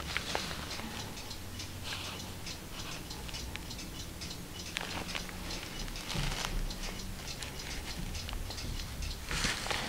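Cotton-gloved fingers handling an antique book, brushing and rustling against its old paper pages and binding, with small irregular ticks and clicks and a few brief soft rustles.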